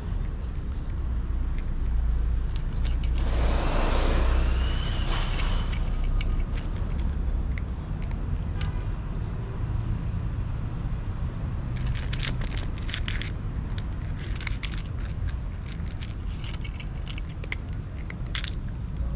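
A cat crunching dry kibble close to the microphone: clusters of sharp clicks about twelve seconds in and again near the end. Under it runs a steady low rumble that swells a few seconds in.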